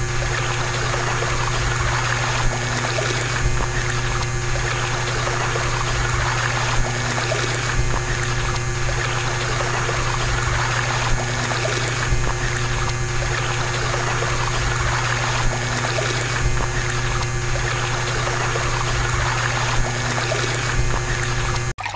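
Stream of water from a small DIY water pump's outlet tube splashing steadily onto brick and ground, over a steady low hum from the pump's small motor.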